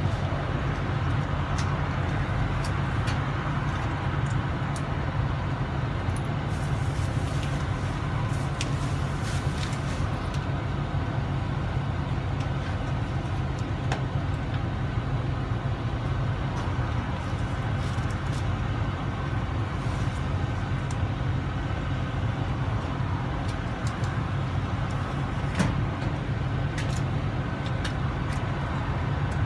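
Pickup truck engine idling with a steady low hum, heard through the open cab door, with scattered faint clicks and knocks.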